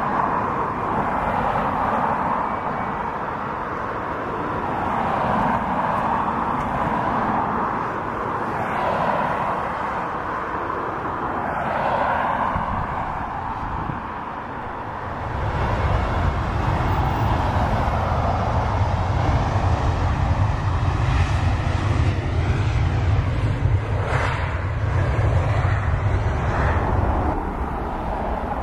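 Jet airliner engines running at taxi power, a steady rushing whine that swells and fades. About halfway through, a heavy low rumble joins and holds until near the end.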